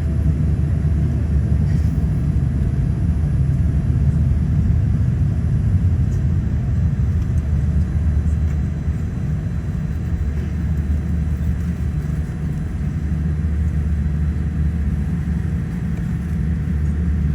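Steady low rumble of a Boeing 787-10 heard from inside the passenger cabin: engine and airframe noise with no sudden events.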